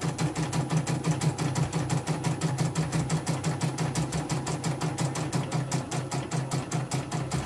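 Computerised household embroidery machine running, its needle stitching a design into hooped fabric in an even, rapid rhythm of strokes, with a low motor hum pulsing in step.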